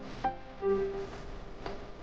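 Background music: held, piano-like pitched notes with a few sharp percussive clicks.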